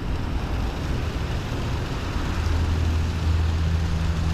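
Steady outdoor rushing noise with a low, steady engine hum that swells louder about two seconds in, typical of road traffic passing near an urban river.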